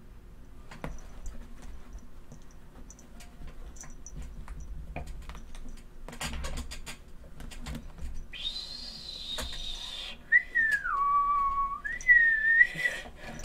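Light scattered clicks and scratches, then a high whistled tone about eight seconds in, followed by a whistle that drops in pitch, holds, and rises again.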